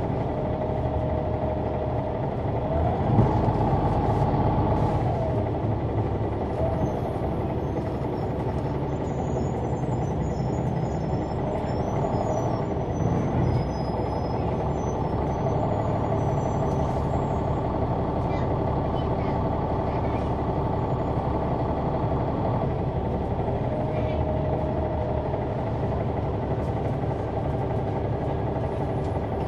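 Caterpillar C-9 ACERT diesel engine of a Neoplan AN459 articulated city bus, heard from the rear seats inside the cabin, running with a steady drone. A whine rises and falls a few seconds in.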